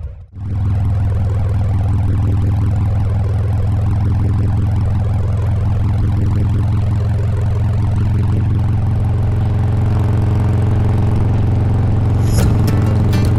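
Harley-Davidson Heritage Softail's Milwaukee-Eight V-twin running at a steady cruising speed, a constant low engine drone with wind and road noise over it.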